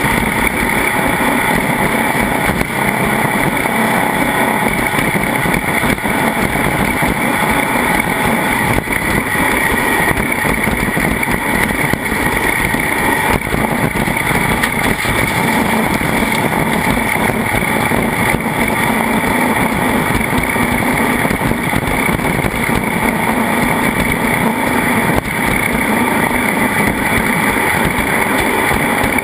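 Racing vehicle under way at speed: a steady, loud run of engine and rushing noise with no change in pace.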